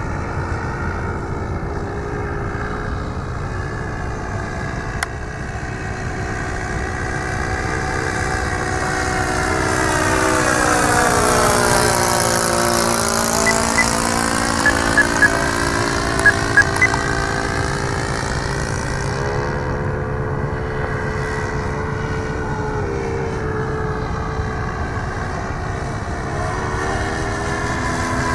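Single-engine Piper Cub-type propeller plane flying past overhead, its piston engine droning steadily. The pitch drops as it passes about halfway through, when it is loudest, then the drone carries on as the plane flies away.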